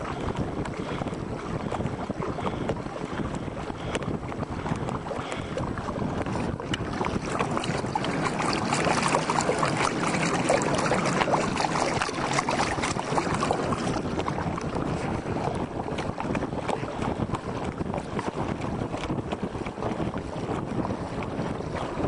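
Water rushing and splashing along the hull of a pedal-powered recumbent boat moving at speed, mixed with wind buffeting the microphone. The rush swells louder for several seconds in the middle, then settles back.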